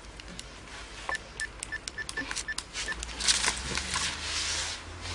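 Mobile phone keypad beeping as a number is dialled: about nine short beeps of the same pitch in under two seconds. A brief rustling noise follows as the phone is raised to the ear.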